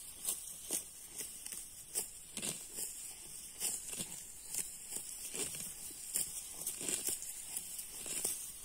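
Grass and leafy shoots being torn and plucked, in irregular crisp rips about one or two a second, over a steady high chirring of insects.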